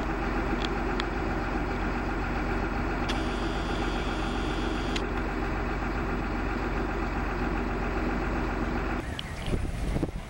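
An engine running steadily at a constant idle speed, with a few faint clicks; it stops abruptly about nine seconds in.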